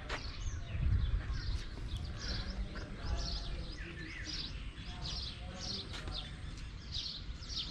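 Birds chirping: a run of short, high, falling notes two or three a second, over a low rumble.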